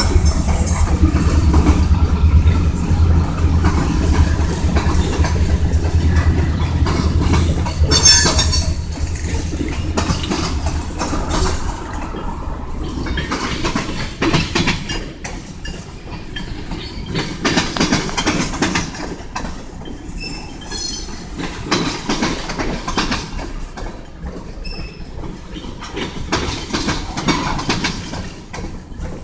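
Freight train of tank cars and boxcars rolling past, its wheels clacking and knocking over the rail joints. A low rumble fades over the first eight seconds or so, and there is a brief loud burst of noise about eight seconds in.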